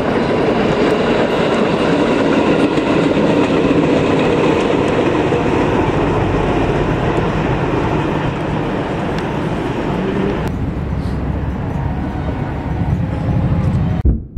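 A train running past on the rails: a loud, steady rumble that changes in character about ten seconds in and stops abruptly near the end.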